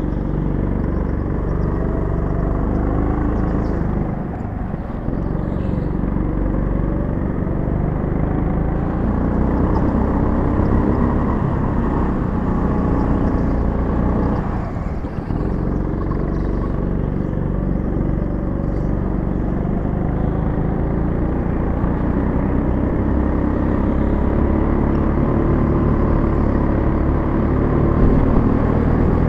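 Go-kart engine running hard from the kart's own onboard camera, its pitch rising and falling with the throttle. The note drops briefly about four and fifteen seconds in as the kart slows for corners.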